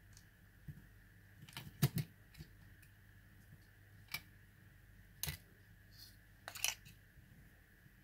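Sharp plastic clicks and snaps as the top shell and battery pack of a JJRC Cfly Faith (Eachine EX4) mini drone are unclipped and handled: a quick cluster of clicks about two seconds in, single clicks near four and five seconds, and another short cluster near seven seconds, over a faint steady hum.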